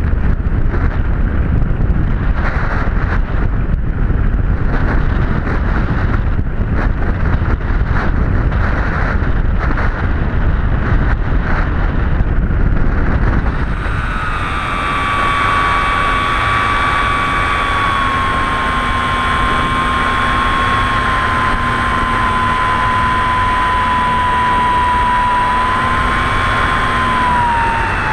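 Wind buffeting the microphone in gusts, then from about halfway the electric motor and propeller of a Skysurfer RC glider whining at a steady pitch that sags slowly and drops near the end as the throttle comes back.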